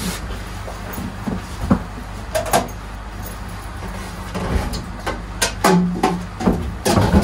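Scattered knocks and clicks from a person handling an apartment front door and pulling off shoes in the entryway, over a steady low hum.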